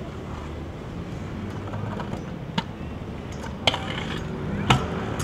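Three sharp hard knocks, the last the loudest, with a few fainter ticks, over a steady low background rumble.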